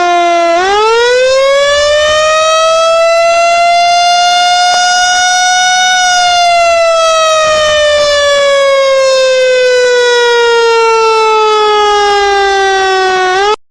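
Siren wailing slowly. Its pitch dips briefly, climbs over about five seconds, holds, then slides down over about seven seconds before cutting off abruptly at the very end.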